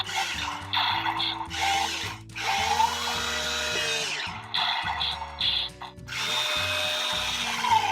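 Electric motor of a remote-controlled CAT toy forklift whirring in short runs, stopping and starting several times, over background music with held low notes.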